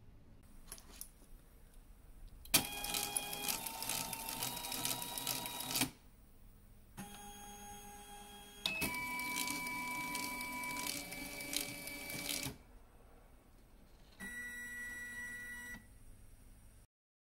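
Stepper motor driving a toothed timing-belt pulley, running in four separate spurts of one to four seconds with a steady multi-tone whine, its pitch stepping as the speed changes, and stopping between runs at a fixed position sensed by a photo-microsensor.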